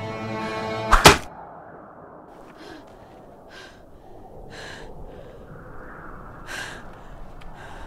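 Film score of sustained chords ending on a loud double hit about a second in, followed by quiet steady background hiss broken by a few short, soft hissing sounds.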